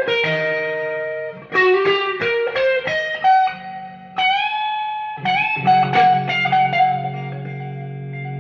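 Fender Stratocaster electric guitar played through Fender DeVille and Blues Junior tube amps with reverb: a phrase of picked single notes, one bent upward about four seconds in, then a low chord left ringing under a few higher notes.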